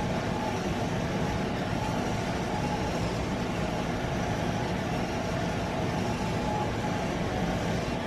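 Instron tensile testing machine running with a steady hum and hiss as it slowly pulls on a 3D printed carabiner.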